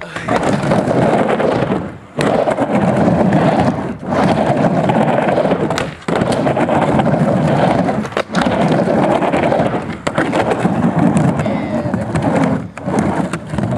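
Skateboard wheels rolling on a plywood halfpipe: a loud rumble that swells and breaks off about every two seconds as the rider goes up and down the walls, with a few sharp clacks.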